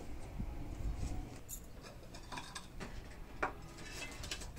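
Scattered light knocks and clicks of firewood sticks being pushed into the firebox of a wood-fired stove (chulha) and knocking against its concrete sides, over a low rumble.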